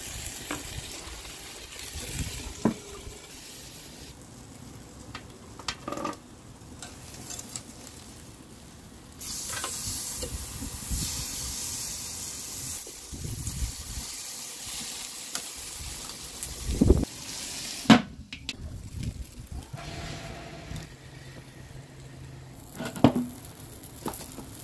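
Food frying in a pan, a steady sizzle that gets much louder from about nine seconds in and drops away about eighteen seconds in. Now and then a utensil knocks and clinks against the pan.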